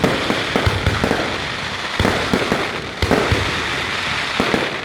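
Fireworks display going off: a rapid, overlapping run of booming bursts several times a second over continuous crackling.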